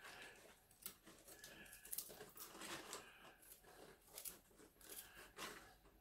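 Faint, scattered papery crackles and light knife scrapes as the dry skin is peeled off a garlic clove with a small knife.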